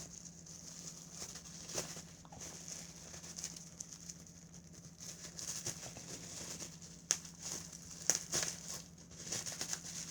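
Packaging being handled and pulled open by hand: faint crinkling and rustling, with several short sharp crackles in the second half.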